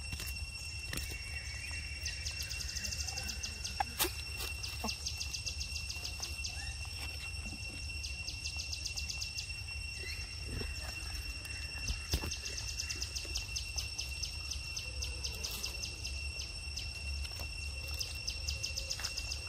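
Evening insect chorus: steady high-pitched drones with recurring bursts of rapid pulsing trills, over a constant low rumble. A couple of sharp clicks stand out, about four seconds in and about twelve seconds in.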